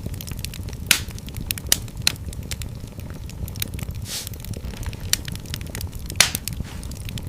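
Wood fire burning in a fireplace: a steady low rumble of flames with frequent sharp crackles and pops, a few louder pops about a second in and again just after six seconds.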